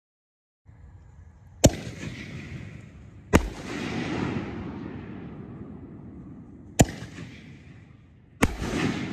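6-inch canister firework shells (EPIC Fireworks Golden Eye) going off: four sharp bangs, the last two closer together, each followed by a long rumbling tail that slowly fades.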